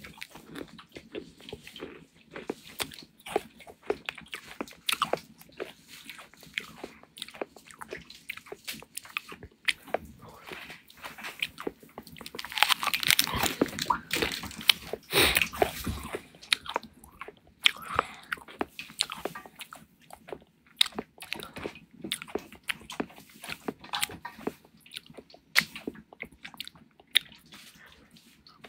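Irregular close-up crunching and clicking, with a louder, denser crackling stretch about twelve seconds in that lasts a few seconds.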